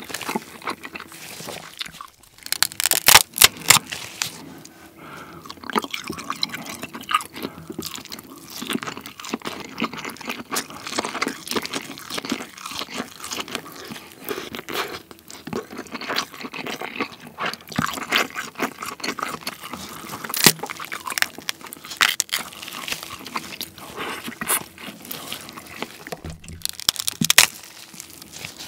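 King crab being eaten close to the microphone: crab shell cracking and crunching, meat pulled from the legs, and wet chewing. The loudest sharp cracks come about three seconds in, again around twenty seconds, and near the end.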